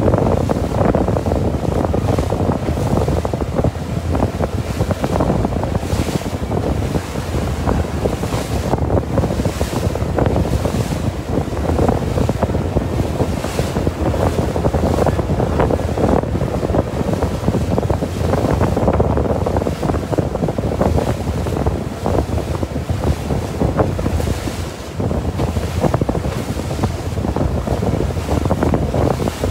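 Heavy wind buffeting the microphone over the rushing, splashing water of a small boat's wake as it moves across choppy sea. The noise is loud and uneven throughout, with no steady tone standing out.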